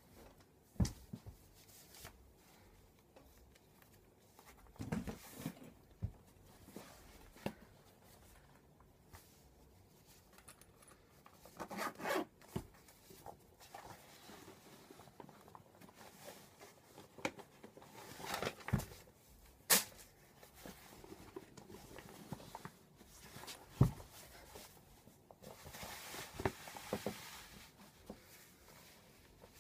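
Zips of tall black boots being drawn up as they are pulled on: several short zipping runs and one longer one near the end, among rustling and a few sharp knocks of handling.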